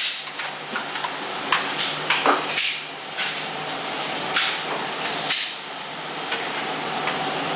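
Scattered sharp metallic clicks and clacks of pistols being handled: magazines going in, slides being released and guns being holstered during a reload. They come one at a time, about once a second, over a steady hiss.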